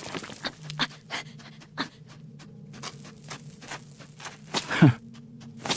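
Cartoon rabbit digging out a burrow with its paws: irregular scratching and scraping strokes on earth, with hard breathing and a short falling grunt of effort near the end.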